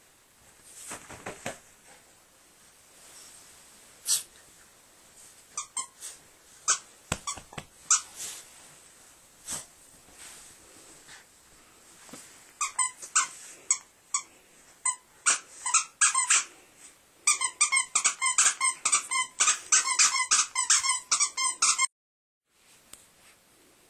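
A dog's squeaky toy being squeezed as the dog chews it. The squeaks come scattered at first, then quicker, and end in a rapid string of squeaks near the end before the sound cuts off suddenly.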